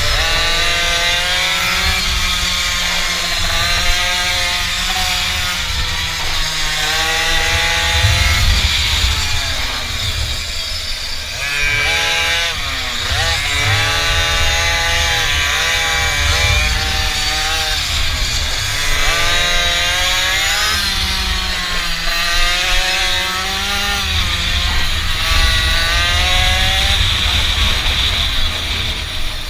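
Mini bike's small engine revving, its pitch climbing and dropping back again and again as the bike is ridden, with wind rumble on the microphone.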